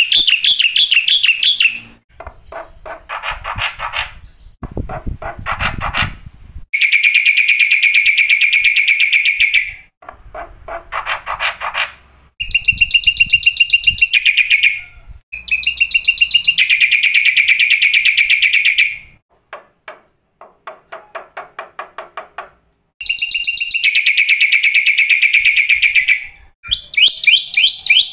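Black-winged myna (jalak putih) song: long, loud, rapid trills of two to three seconds each, alternating with quieter runs of clicking chips.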